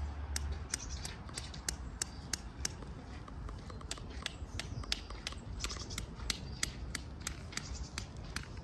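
Footsteps on hard pavement, a steady series of sharp clicking steps about three a second.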